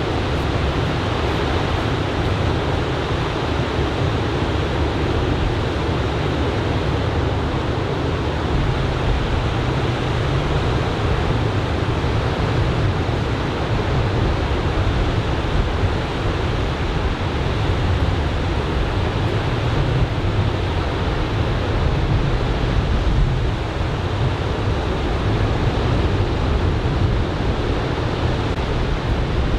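Ocean surf from a typhoon swell breaking along a sand beach, a steady continuous wash of waves with a deep low rumble.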